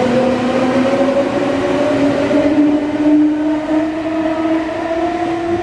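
Meitetsu 5300 series electric train pulling away: its traction motors whine in several parallel tones that rise steadily in pitch as it accelerates, over the rumble of the wheels on the track.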